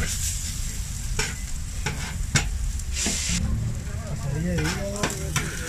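A metal spatula scraping and clacking on a flat steel taco griddle while chopped adobada pork fries and sizzles on it. A few sharp clacks stand out, the loudest about two and a half seconds in.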